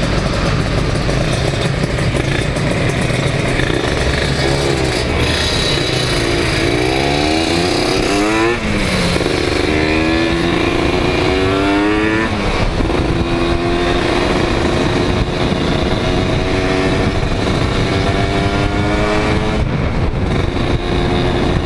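Kawasaki Ninja 150 two-stroke motorcycle accelerating from a stop, its pitch climbing and dropping at the gear changes about eight and twelve seconds in, then running at a steady, slowly rising pitch at cruising speed. Heavy wind noise on the microphone lies under it.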